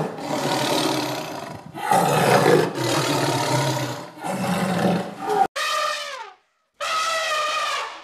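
Tiger roaring three times in long, rough calls, followed by two shorter, higher calls that fall in pitch near the end.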